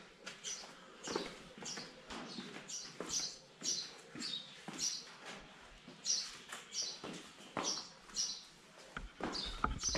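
Footsteps of people walking across a polished laminate floor, about two steps a second. Each step has a short, high squeak.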